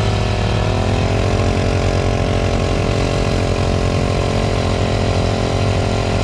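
Small gas engine of a pocket bike running at a steady low speed; its note dips and picks back up in the first second, then holds even.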